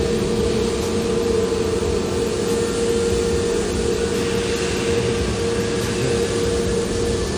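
Steady drone of aircraft machinery on an airport apron: a constant mid-pitched hum, a weaker lower hum beneath it, and an even rushing noise, unchanging throughout.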